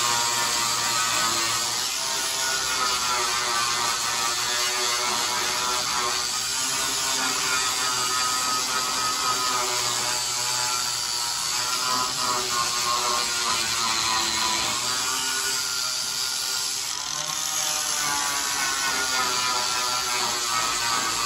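Angle grinder grinding down spot welds on a steel quarter panel, running steadily, its whine dipping and recovering as it is pressed into the metal.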